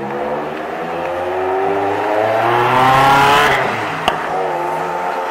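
Ferrari 360 Spider's V8 accelerating, its note climbing in pitch and growing louder for about three and a half seconds before the revs drop back, then running steadier at lower revs. A short sharp click about four seconds in.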